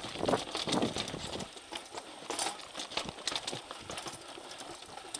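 Mountain bike rolling slowly over stone slabs, its tyres, chain and frame giving irregular knocks and clicks.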